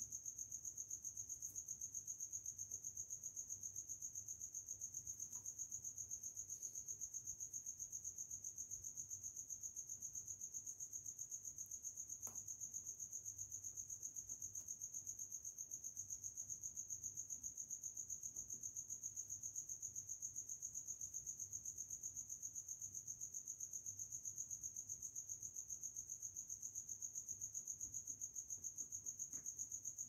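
An insect trilling steadily on one high pitch with a fast, even pulse, like a cricket, over a faint low hum.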